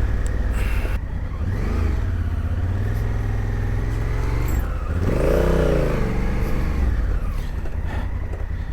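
Adventure motorcycle engine, heard from the rider's seat, working over rough off-road ground. The throttle is blipped, with a small rise in revs about a second and a half in and a bigger rev that climbs and falls back around five seconds in.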